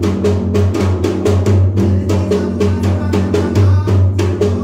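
Sri Lankan ritual drum beaten in a fast, steady rhythm of about five strokes a second.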